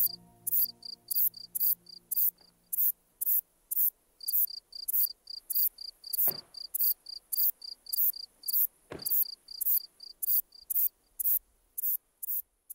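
Crickets chirping in a steady rhythm, about three short high chirps a second, with a couple of brief pauses. Background music fades out over the first few seconds, and there are two brief soft whooshes about six and nine seconds in.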